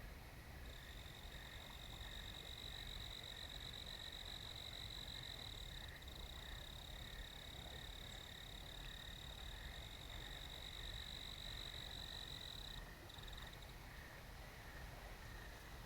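Night chorus of trilling frogs or insects. A continuous high-pitched trill starts under a second in, breaks off briefly about 13 seconds in, then stops near the end, over a softer, lower pulsing trill and a faint low rumble.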